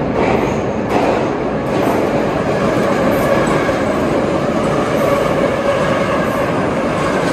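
Metro train running past at close range in the tunnel: a loud, continuous rumble of wheels on rails, with a couple of sharp clacks about a second in.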